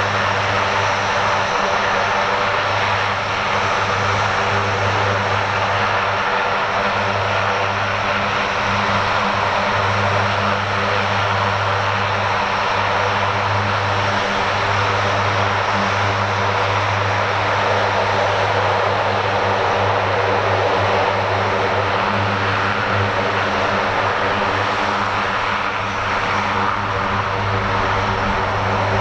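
The four turboprop engines of a USAF MC-130J Hercules run steadily at taxi power, a low even propeller drone with a rushing hiss over it. The engines are Rolls-Royce AE 2100s driving six-blade propellers.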